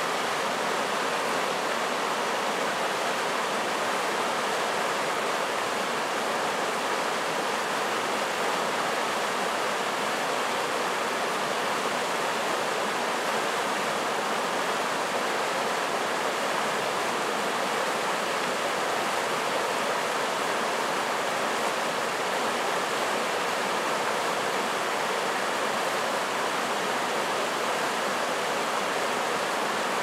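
River rapids: white water rushing and churning over rocks in a small cascade, a steady rush that doesn't change.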